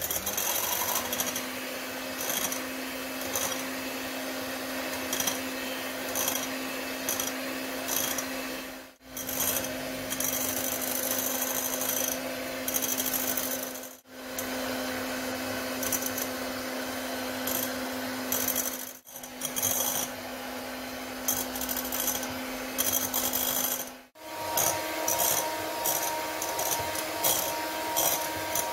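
Electric hand mixer running steadily, its beaters whipping vanilla mousse powder into cold milk until it foams up and thickens. Irregular clicks come from the beaters against the glass bowl. The motor drops out briefly several times and runs at a higher pitch for the last few seconds.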